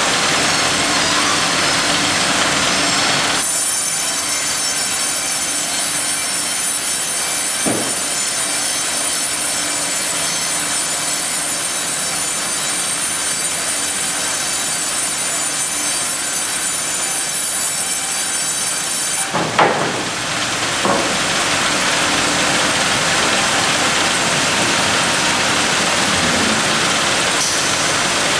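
Ustunkarli UHM 140 H vertical log bandsaw sawing a log fed on its hydraulic log carriage. For about fifteen seconds the cut gives a high whine over the steady saw noise. A couple of knocks come just as the cut ends, and the saw then runs on without the whine.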